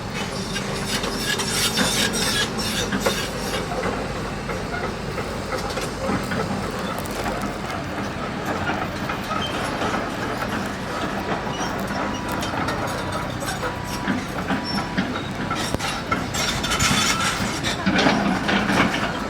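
Heavy machinery clanking and rattling: a dense run of metal knocks and clatter over a steady mechanical noise, busiest near the end.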